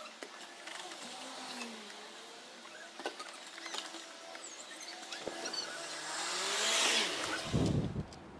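A vehicle passing by: its tyre and engine noise swells to a peak about seven seconds in, with a deep rumble, then falls away, over a few faint clicks.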